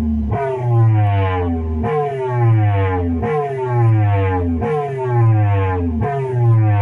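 Repaired audio deck playing a siren-like electronic tone through a loudspeaker: a falling pitch glide that restarts about every second and a half, over heavy bass.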